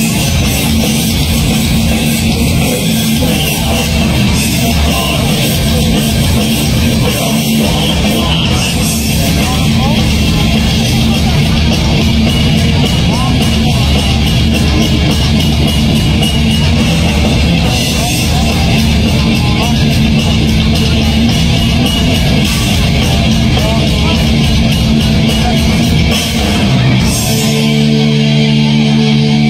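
Heavy metal band playing live: distorted electric guitars, bass and a drum kit hammering a fast beat. About 27 seconds in, the drums drop out and a held chord rings on.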